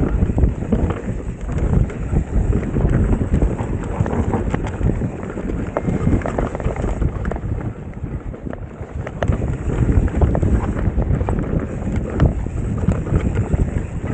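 Mountain bike riding down a dirt forest singletrack, heard from a camera on the bike: wind rushing over the microphone and tyres rolling on dirt, with frequent short clatters and knocks from the bike over bumps.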